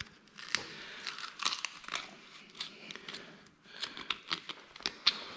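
Boning knife cutting and scraping along the bone of a raw pork leg, a run of short, irregular scrapes and clicks as the blade is worked close against the bone.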